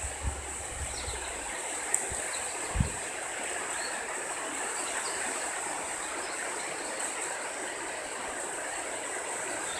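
Rain falling steadily, an even hiss of drops: the first rain of an approaching thunderstorm. A faint tap or two sounds about two to three seconds in.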